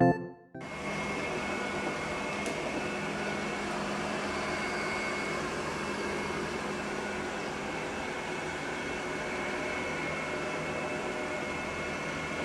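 A steady mechanical hum with a faint high whine, unchanging throughout, starting just after a short burst of music ends.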